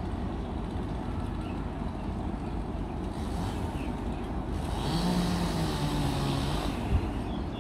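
Truck-mounted crane's engine running with a steady low rumble. From about three seconds in, a louder engine sound with a hiss and a low hum builds, strongest over the next few seconds. A single short thump comes near the end.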